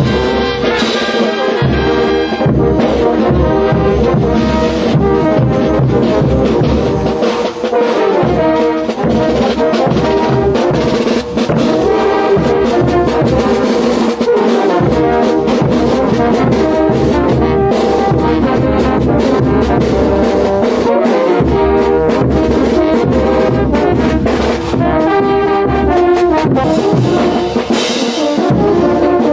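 Brass band playing lively carnival dance music, with several brass instruments over a steady drum beat.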